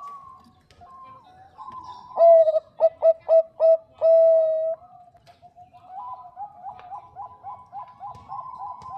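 Zebra dove (Bangkok perkutut) cooing. About two seconds in comes a loud run of short, clipped coos ending in one long held note. In the last three seconds a quicker, quieter string of short coos follows.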